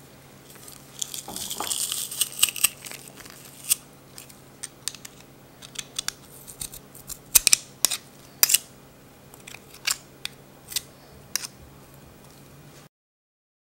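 Metal garlic press crushing garlic: a crackly crunch about a second in, then many sharp metallic clicks and scrapes as a knife scrapes the pressed garlic off the press's grid. The sound cuts to dead silence for about a second near the end.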